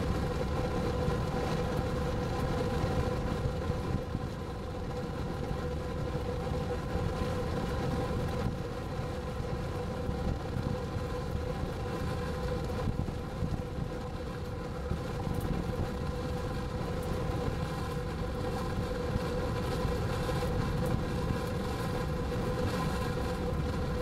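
Storm wind rushing and buffeting over the microphone, with a steady droning hum underneath.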